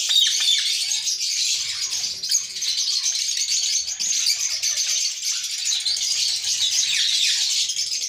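Continuous dense, high-pitched chatter of many caged birds calling together in an aviary.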